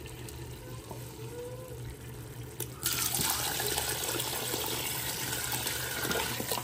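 Water pouring in a steady stream into a cooking pot of fried chickpea masala, starting about three seconds in.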